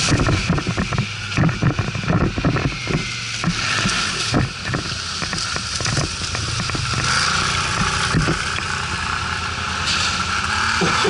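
ATV (quad bike) engine running on the move, with many short knocks and rattles over the first few seconds that come from riding over rough ground.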